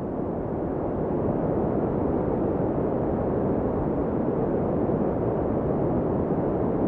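Ocean surf: a low, rushing wash of waves that swells over about the first second and then holds steady.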